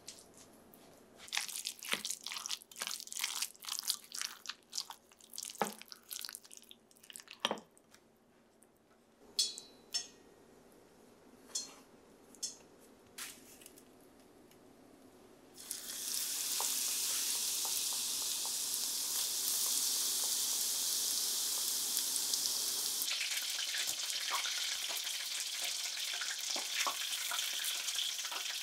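A wooden spoon stirring and scraping egg tartar sauce in a glass bowl, with scattered clicks against the glass. About halfway through, a steady hiss with crackling sets in as panko-breaded oysters deep-fry in a pan of oil.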